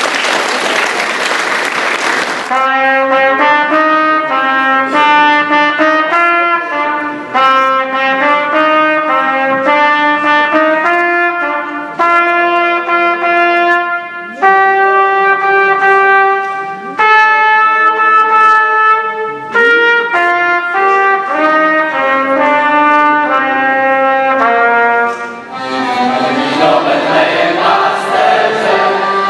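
Solo trumpet playing a slow melody of held notes, in phrases with short breaks. Applause fills the first couple of seconds and returns near the end as the melody finishes.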